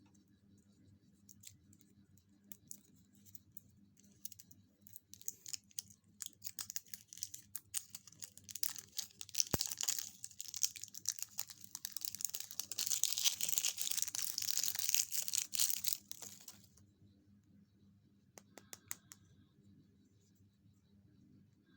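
Packaging wrapper being handled close to the microphone: scattered crinkles build into about seven seconds of continuous crinkling and tearing, stop suddenly, and a few last crinkles follow.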